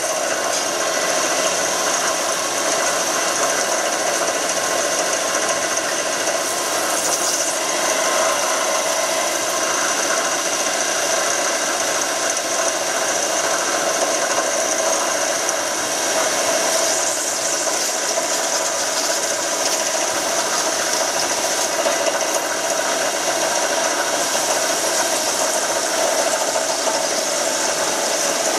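Jenn Wei JMY-series multi-axis CNC turning-milling center running: a steady, unbroken machine noise with a constant high tone over it.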